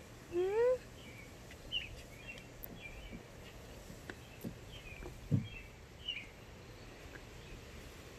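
Faint bird chirps in the background, with a short rising hum near the start and a couple of soft knocks from puppies being handled on the grass.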